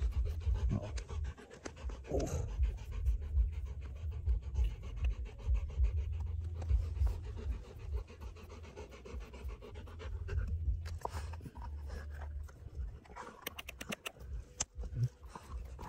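A dog panting in quick, even breaths, over a low rumble underneath.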